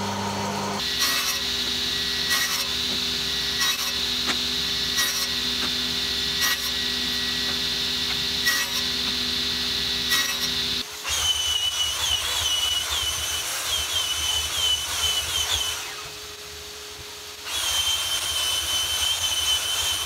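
Sliding table saw running while ash balusters are cut, with short knocks about every second and a half. About halfway through, it gives way to a handheld electric sander running on the slats with a wavering whine; the sander stops briefly and starts again.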